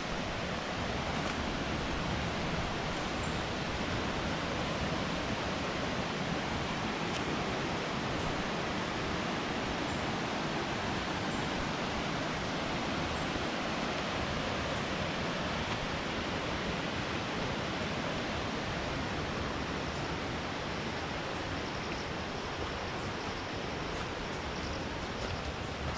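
Waterfall's falling water making a steady, even rush, with a few faint high chirps over it.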